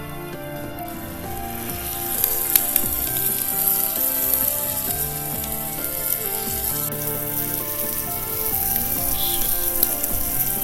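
Meat sizzling and spitting as it cooks over the fire, with a few sharp pops, over background music.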